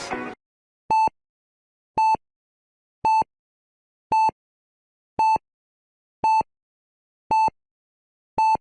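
Short electronic beeps of one steady pitched tone, eight in all, spaced about a second apart with silence between them.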